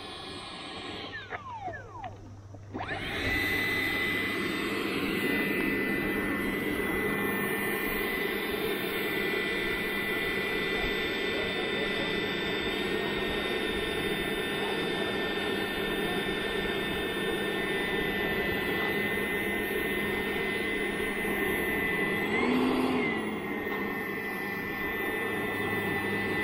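80mm electric ducted fan of a Freewing Avanti S jet whining steadily at low taxiing throttle, a high steady whine over a rushing hiss. It opens with the fan's pitch falling, drops out briefly about two seconds in, and near the end the pitch rises for a short throttle blip.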